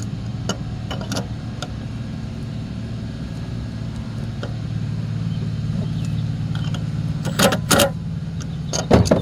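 A steady low engine-like hum runs throughout, with a few sharp knocks or clicks about seven and a half seconds in and again near the end.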